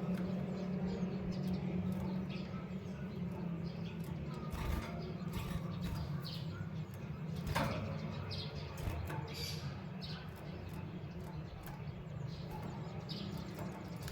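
Small caged birds, a female canary and a male white-headed munia, giving short scattered chirps, with a few brief fluttering knocks, over a steady low hum.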